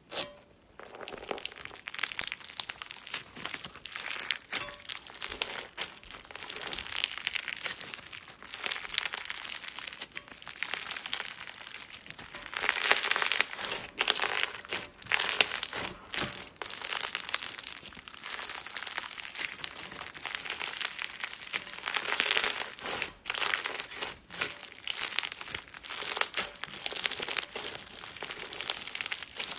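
Crunchy slime being squeezed and kneaded by hand: a dense, continuous crackling and crinkling that rises and falls in loudness.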